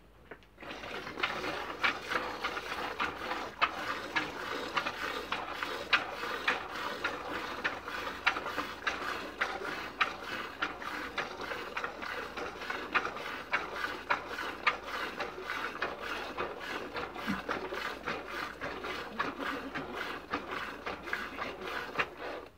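Hand milking of a dairy goat: regular squirts of milk from her teats into a plastic bucket that already holds milk, about two to three squirts a second. The rhythm starts about half a second in and stops suddenly at the very end.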